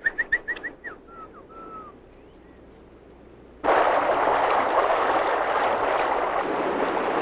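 A quick run of short, high-pitched calls, then river water rushing, which cuts in abruptly about three and a half seconds in and runs on loud and steady.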